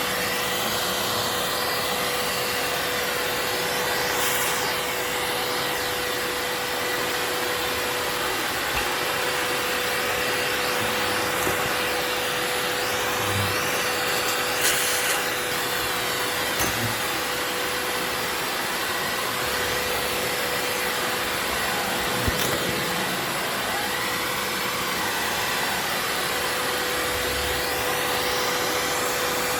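Vacuum cleaner running steadily with a constant whine, with a few brief knocks now and then.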